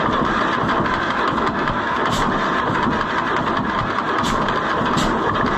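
Tractor engine running steadily, with a few sharp clicks or pops.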